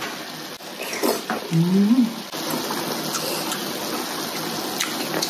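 Electric hotpot-grill pan cooking: a steady hiss of sizzling and bubbling from about two seconds in. Before it, a couple of light clicks and a short rising 'mm' from someone eating.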